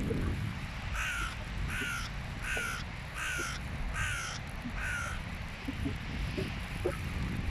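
Hooded crow cawing six times in an even series, about two-thirds of a second apart, over a steady low rumble.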